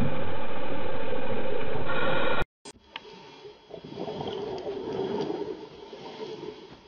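Steady loud drone of a running engine heard underwater, which cuts off abruptly about two and a half seconds in. After it comes much quieter water noise that swells a little and fades.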